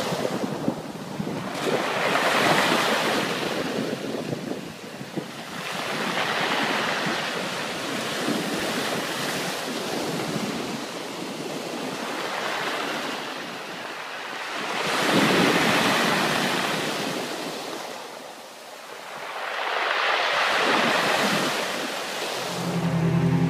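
Shallow waves breaking and washing up a sandy beach, surging and falling back every few seconds, with wind on the microphone.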